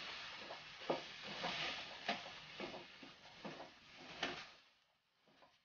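Frozen mixed vegetables sizzling in a non-stick wok as a wooden spatula stirs them, with repeated knocks and scrapes of the spatula against the pan. The sizzle fades away about four and a half seconds in, leaving only faint ticks.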